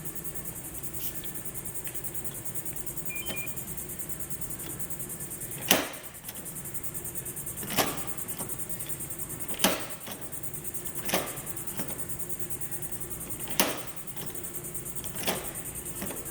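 Deadbolt lock mechanism giving a series of sharp clicks and clunks a couple of seconds apart, about six in all, mostly in the second half, as its exterior handle is worked and the bolt throws and retracts. The clicks come over a steady background hiss. The bolt sometimes stops short of full retraction.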